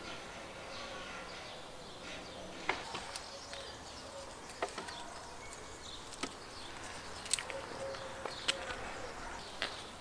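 Outdoor garden ambience with a faint insect buzz and scattered sharp clicks, about one every second.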